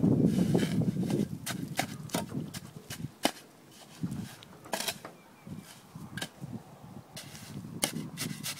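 A steel spade tamping and scraping fresh concrete around a wooden post: a scattered run of sharp knocks and gritty scrapes, some of them in quick pairs, after a low rumble in the first second or so.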